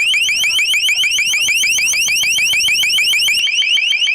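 Long-range acoustic device (LRAD) sounding its high-pitched, ear-piercing warning tone: a rapid string of short rising chirps, about eight a second.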